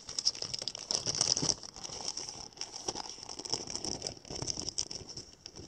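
Protective sleeve rustling and crinkling in the hands as a 45 rpm record in its cover is slid back into it, with many small irregular handling clicks.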